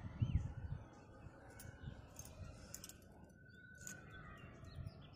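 Faint outdoor background noise with a low rumble, loudest just after the start, scattered light clicks, and a short chirp-like bird call near the start.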